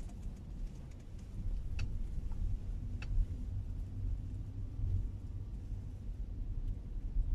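Low steady rumble of a Toyota sedan's engine and tyres heard from inside the cabin while it rolls slowly, with two small sharp clicks a little over a second apart.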